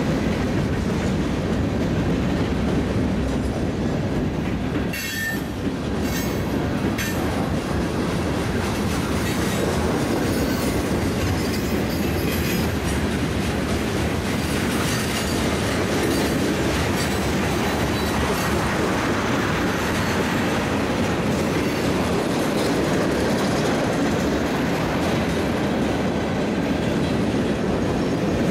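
Freight cars of a Norfolk Southern manifest train rolling past (covered hoppers, a tank car, gondolas): a steady din of steel wheels on rail, with a few sharp clicks about five to seven seconds in.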